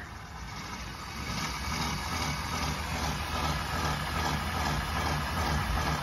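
Electric drive motor and gearbox of an RC lawn mower spinning a freshly mounted snowblower wheel off the ground, a steady low hum with a faint whine. It grows louder over the first couple of seconds as the wheel is sped up, then holds steady.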